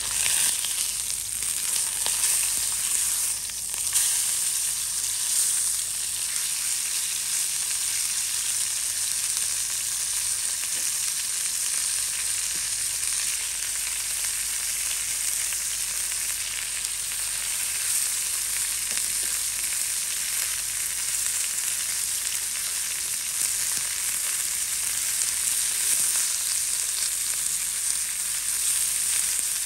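Food sizzling in a pan, a steady frying hiss with a few light clicks.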